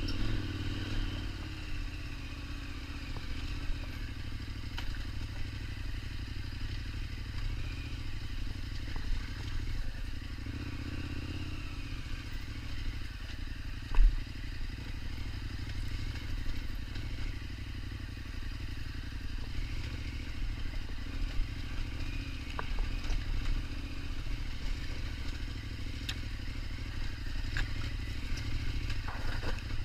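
KTM 1290 Super Adventure's V-twin engine running at low, fairly steady revs while riding, with clatter and scraping and one sharp knock about fourteen seconds in.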